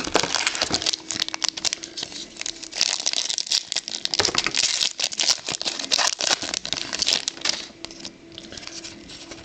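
Trading card pack wrappers crinkling and tearing open, with cards being shuffled and flicked through by hand: a busy, irregular rustle full of sharp little clicks.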